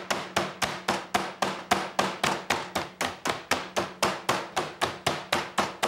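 Two meat mallets pounding chicken breasts flat through plastic wrap on cutting boards: a quick, steady run of thuds, about five a second.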